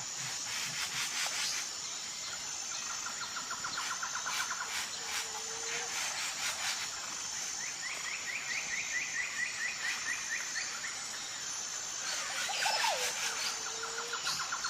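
Tropical forest ambience: a high steady insect drone that breaks off at intervals, with rapid trilled calls from birds or insects, a few short low whistles and scattered clicks, and a louder call near the end.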